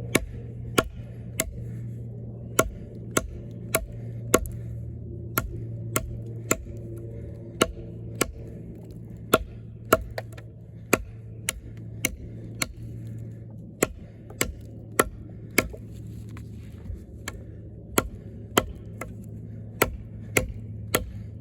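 Eafengrow EF-143 fixed-blade camp knife, with a thick 6.7-inch AUS-10 steel blade, chopping into wood in a steady run of sharp chops, about one to two a second, the blade cutting right through.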